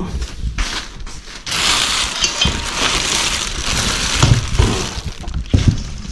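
Rummaging through rubbish in a dumpster: a long stretch of rustling and crinkling, with scattered clicks, clinks and knocks as items are moved about.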